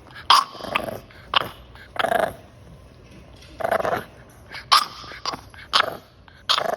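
Old English Bulldogge puppy barking in short, raspy yaps, about nine of them with pauses between, fussing.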